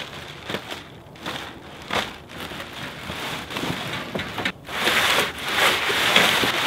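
Clear plastic wrapping crinkling and rustling as it is pulled off a boxed metal fire pit frame, in uneven bursts that are loudest in the last two seconds.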